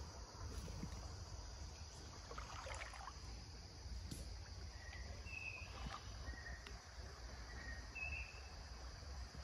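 Faint woodland creekside ambience: a low rumble of wind or handling on the microphone under a steady high insect-like drone. A few short high chirps come in the second half, with a few faint clicks.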